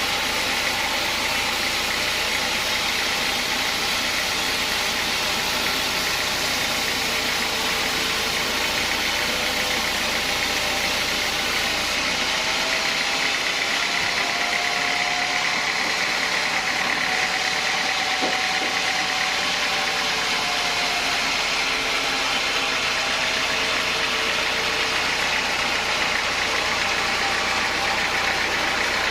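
Sawmill saw cutting a teak log: a steady, loud mechanical noise that holds without a break.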